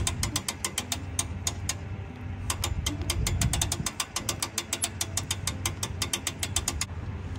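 Fast, even mechanical clicking, many clicks a second, over a steady low hum; the clicking pauses briefly about two seconds in and stops shortly before the end.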